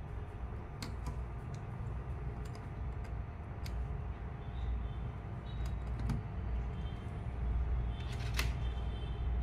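Light scattered clicks and taps of a USB pen drive being handled and pushed into the amplifier's front-panel USB port, over a steady low background hum.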